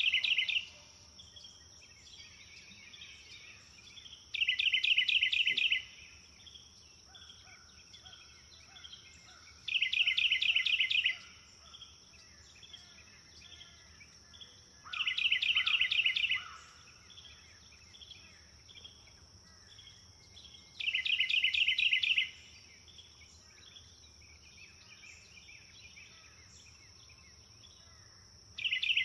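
A bird repeating a fast, loud trill of about a second and a half, six times at intervals of roughly five to six seconds, with softer calls in between. Under it runs a steady high-pitched insect drone.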